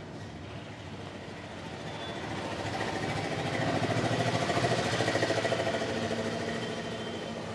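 A motor vehicle passing close by, its engine noise swelling to a peak about halfway through and fading away again.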